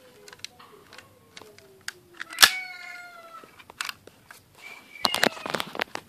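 A drawn-out faint tone sliding down in pitch. About two and a half seconds in comes a sharp click and a short falling pitched cry. Near the end, a loud clatter as the recording phone is dropped.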